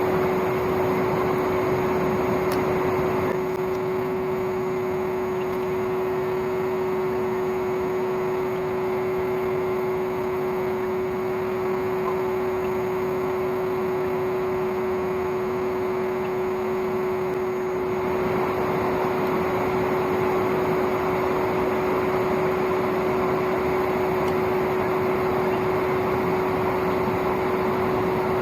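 Old vacuum cleaner motor running steadily as the air blower of a homemade coal forge: a constant whine over rushing air, which eases slightly about three seconds in and picks up again around eighteen seconds.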